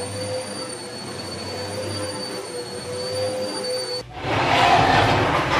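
Small handheld vacuum cleaner running, a steady motor whine over a hum. It cuts off about four seconds in, and a louder rough scraping follows as an electric fireplace unit is pushed across a hard floor.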